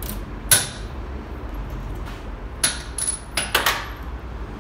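Small steel diesel injection pump parts clicking and clinking against each other and the metal bench as they are fitted together by hand: one sharp click about half a second in, then a cluster of clicks and knocks near the end, some with a short high ring, over a low steady background hum.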